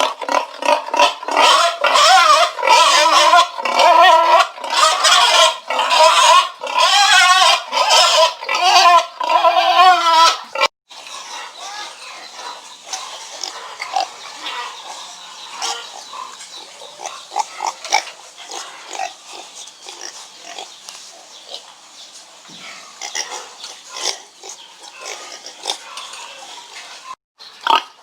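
Pigs squealing and grunting loudly in quick, repeated pitched calls for about the first ten seconds. After a sudden cut comes a much quieter stretch of short, scattered snuffling and clicking sounds, and the loud calls return just at the end.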